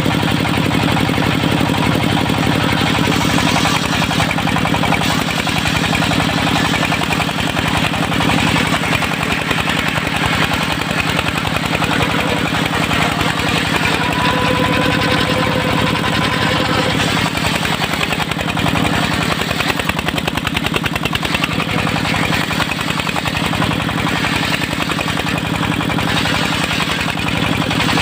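Diesel engine of a portable circular sawmill running steadily, with a fast, even chugging beat.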